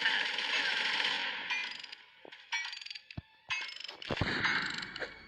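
Strange intermittent mechanical rattling with scattered clicks. It fades about two seconds in and starts again near four seconds.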